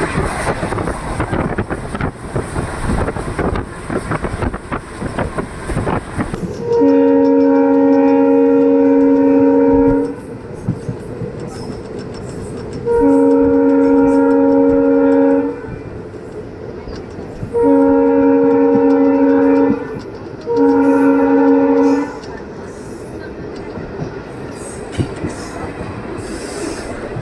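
Train running on the rails with rattle and rushing noise, then the WAP-4 electric locomotive's EMD-style horn sounds four times, several notes at once. The first blast lasts about three seconds, the second about two and a half, and the last two are shorter and close together.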